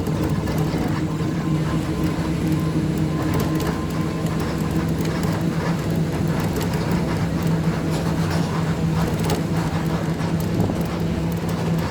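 Steady drone of a moving vehicle: a constant low engine hum over road or running noise, with light rattling.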